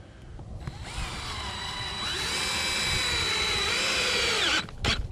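DeWalt DCD771 cordless drill driving a 4-inch coated deck screw into wood: a motor whine that starts just under a second in, climbs in pitch, runs steadily for about four seconds, then slows and cuts off near the end, followed by a sharp click.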